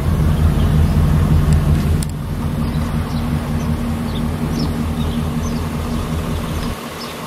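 Chevy Silverado 3500HD truck engine idling with a steady low rumble, cutting off abruptly near the end.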